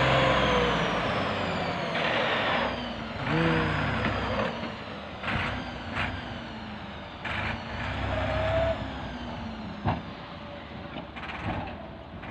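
Massey Ferguson tractor's diesel engine running while its hydraulic tipping trolley dumps a load of soil, with the rush of earth sliding out and several sharp knocks. The engine note rises and falls, and the sound fades toward the end as the trolley empties.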